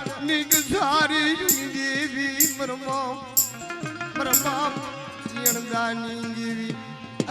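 Instrumental passage of Gujarati folk devotional music: a wavering melody line over a drum beat, with a bright metallic stroke about once a second.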